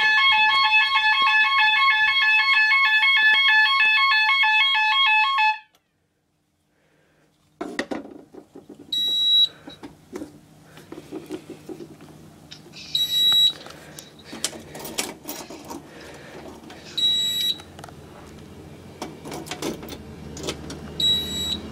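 Fire alarm sounder on a conventional fire alarm system sounding a rapidly alternating two-tone alarm, set off by an ionization smoke detector going into alarm; it cuts off after about five seconds. After a short gap there are handling knocks and a short high beep about every four seconds from the fire alarm control panel.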